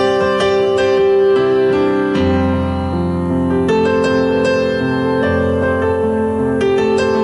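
Electronic keyboard playing a slow ballad instrumental passage with a piano sound: sustained chords that change every second or so, with a low bass line coming in about two seconds in.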